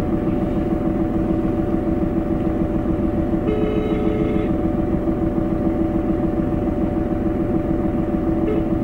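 Phone ringback tone heard over speakerphone: a single one-second beep about three and a half seconds in, with the next one just starting near the end, over a steady hum inside the car. The call is ringing and not yet answered.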